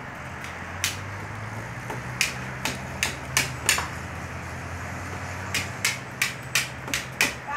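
Sharp knocks like hammer blows, in two runs of about six, roughly three a second, over a steady low hum.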